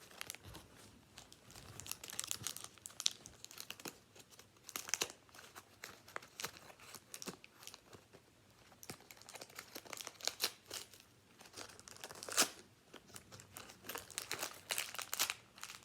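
A small plastic toy packet crinkling and being torn open by hand, in irregular crackles with a louder crackle about twelve seconds in.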